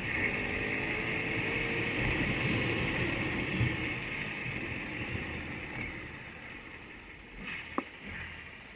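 A motorcycle engine runs under road and wind noise while riding, growing quieter over the last few seconds as the bike slows. A single short click sounds near the end.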